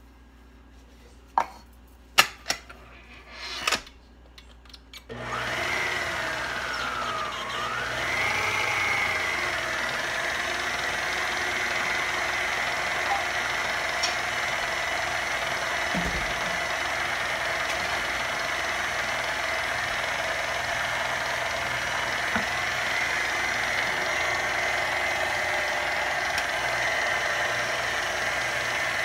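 A few knocks and clicks, then an electric mixer starts about five seconds in, its pitch swinging down and back up before it settles into a steady whine as it beats cake batter.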